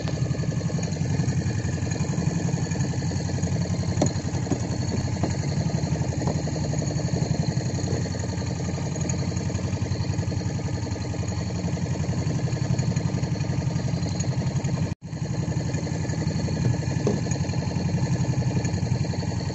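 Boat engine idling steadily, a fast even chugging, with a momentary break about fifteen seconds in.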